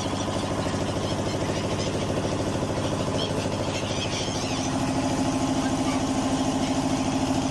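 A motorboat engine runs at a steady idle with a fast, even knock, its hum growing a little stronger about halfway through. Scattered high bird calls sound over it.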